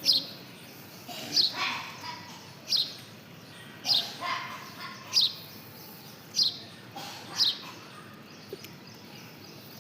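A bird chirping: seven short, sharp, falling chirps come about once a second and stop a couple of seconds before the end.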